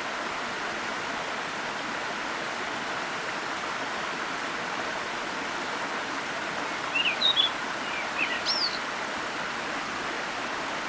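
Steady rush of a forest waterfall. A small bird chirps a few short notes a little over two-thirds of the way through.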